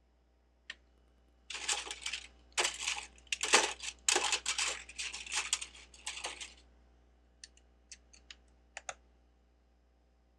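Loose plastic Lego bricks clattering as a hand rummages through them for about five seconds, then a handful of single sharp plastic clicks.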